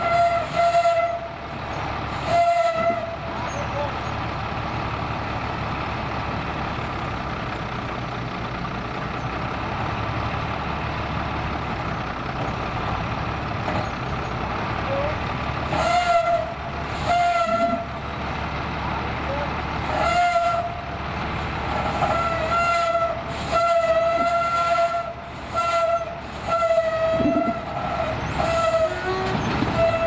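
Fendt Favorit 822 tractor running while its raised tipping trailer unloads soil. A high whistling whine comes and goes over the engine: briefly at the start, again around 16 and 20 seconds in, then in short repeated pulses through the last third.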